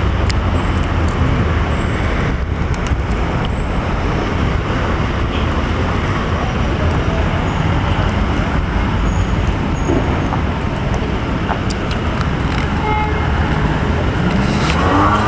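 Steady city traffic noise.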